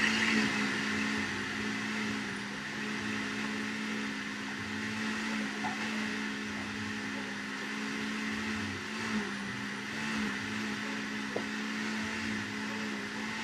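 Countertop blender motor running steadily, blending strawberries and liquid into a drink, with an even hum.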